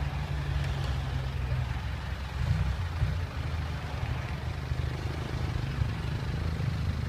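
Diesel truck engine running with a low rumble; it picks up a little about two and a half seconds in.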